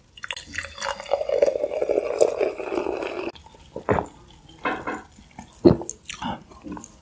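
A soft drink being poured into a glass for about three seconds, stopping suddenly, followed by several separate gulps as it is drunk.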